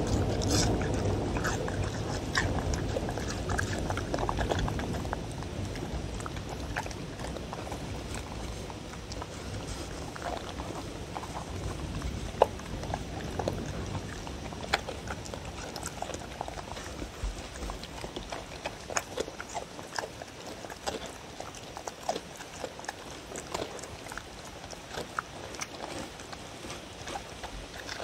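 Two dogs eating from a wooden bowl: wet chewing, smacking and licking, with many short clicks. It is busiest and loudest in the first five seconds or so, then goes on as sparser clicks and smacks.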